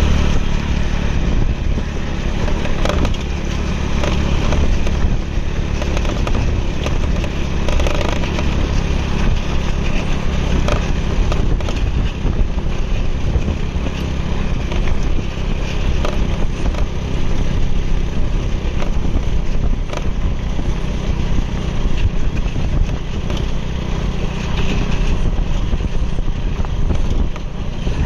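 A motor vehicle's engine running steadily at speed, with road and wind noise and scattered clicks.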